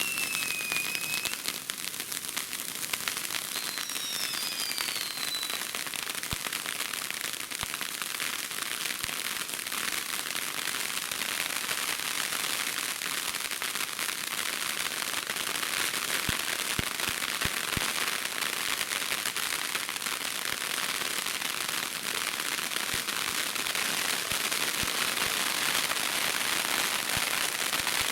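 Consumer fireworks crackling continuously, a dense rapid stream of small pops, with a couple of short falling whistles in the first few seconds; the crackle grows a little louder near the end.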